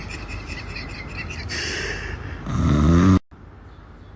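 Snoring: rough, rattling breaths, then a loud, deep snore about two and a half seconds in that cuts off abruptly just after three seconds.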